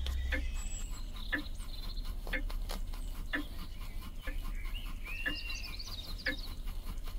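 Small live-steam model beam engine running slowly, beating regularly about once a second, while a pet budgerigar chirps and warbles in the background, most busily a little past the middle.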